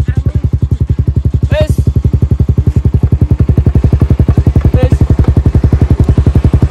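Yamaha R15's single-cylinder engine idling through an aftermarket truck-style 'suos' exhaust: a steady, deep, evenly pulsing exhaust note at about thirteen beats a second. Its owners liken the booming sound to a Herex exhaust.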